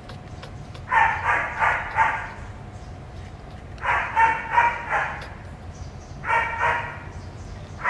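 Baby monkey giving high squealing cries in three bouts, each a quick run of several calls: about a second in, near the middle, and near the end.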